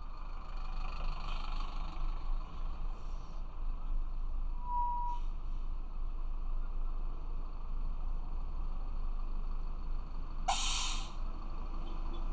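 City bus air brakes letting out one short, loud hiss of air near the end, over a steady low rumble of traffic. A brief beep sounds about five seconds in.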